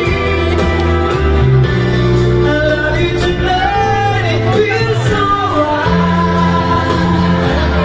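A man singing into a handheld microphone, his voice amplified, over instrumental backing music with held bass notes.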